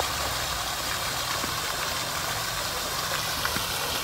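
Ornamental fountain's water jet splashing steadily down into its stone basin, with a low rumble underneath.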